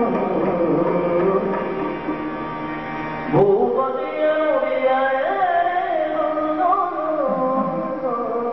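Yakshagana bhagavata (male voice) singing a padya in raga Mohana over a steady drone, with gliding, ornamented pitches. A single loud, sharp drum stroke falls about three and a half seconds in.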